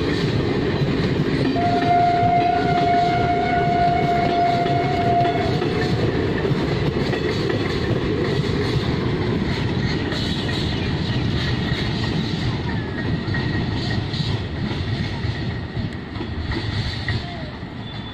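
Passenger train of ICF coaches running past, wheels on the track making a steady rumble that fades as the last coach moves away. A train horn gives one long blast from about two seconds in, lasting about four seconds.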